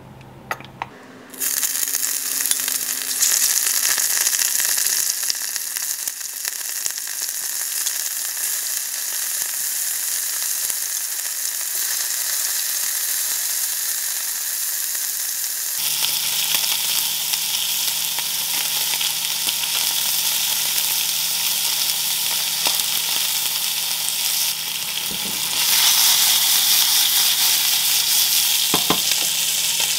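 Cubes of beef searing in hot oil in a cast-iron skillet: a steady loud sizzle that starts abruptly about a second in and grows louder near the end.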